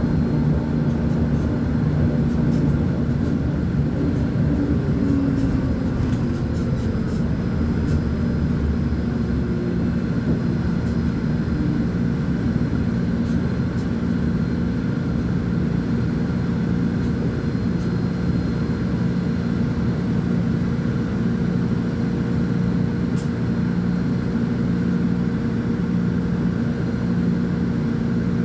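Volvo B10M articulated bus's six-cylinder diesel engine running under way, its low drone shifting slightly in pitch in the first few seconds and then holding steady.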